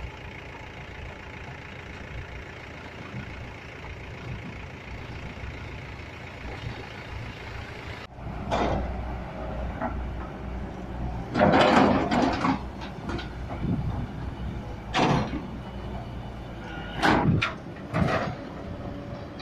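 Mahindra 415 DI tractor's diesel engine running steadily. About eight seconds in the sound changes abruptly to a heavier low rumble, and several loud, sudden noises break through, the loudest around twelve seconds in.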